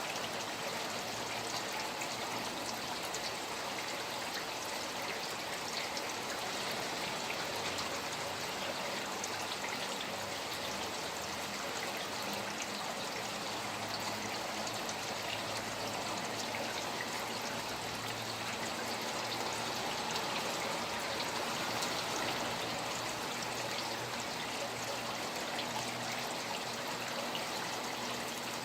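Steady rain falling beside flowing water: a running stream's constant wash with many small drop ticks over it.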